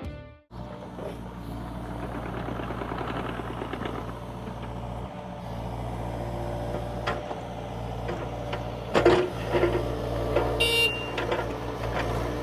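Excavator's diesel engine running steadily, with a few sharp knocks about nine seconds in.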